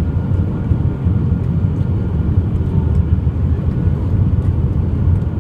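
Steady low rumble of an Airbus A320's engines and airflow, heard inside the passenger cabin.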